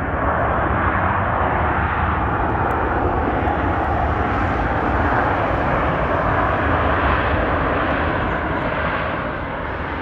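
Boeing 737-900ER's CFM56-7B jet engines running loud and steady during the landing rollout on the runway. The noise eases a little near the end.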